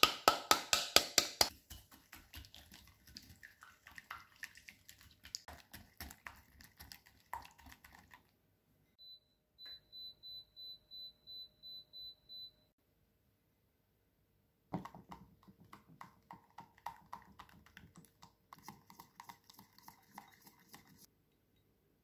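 A whisk beating eggs and sugar in a glass bowl: fast clicking of metal on glass, loudest in the first second and a half, then lighter. About halfway through, an induction cooktop's touch panel beeps in a quick regular series of short high beeps. Near the end the clicking starts again over a faint steady hum.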